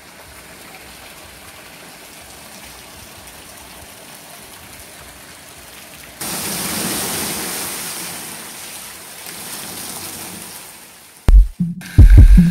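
Steady rushing of water running into the water-park pools, jumping louder about six seconds in and then slowly fading. Loud music with a heavy bass beat starts near the end.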